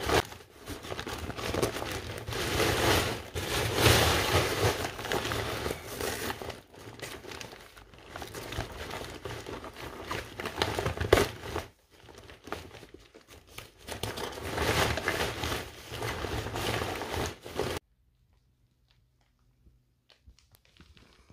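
Kite fabric and a thin plastic inflatable bladder crinkling and rustling as they are handled and worked through the kite's tube, in uneven bursts, cutting off suddenly near the end.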